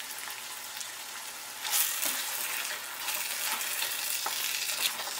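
Onions and a freshly added wet spice paste sizzling in hot oil in a steel kadai. From about a second and a half in, a wooden spatula stirs and scrapes through the mixture, and the sizzle gets louder and more uneven.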